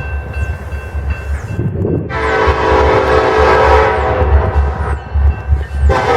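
Diesel locomotive horn sounding one long chord blast starting about two seconds in and lasting nearly four seconds, with a second blast starting near the end, over the steady rumble of a train.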